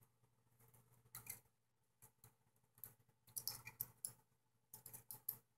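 Faint, scattered small clicks and ticks of metal and plastic camera parts as the sheet-metal cage inside a Canon Powershot A70 is pried and worked over a plastic peg. The clicks come in a few clusters, the busiest a little past the middle.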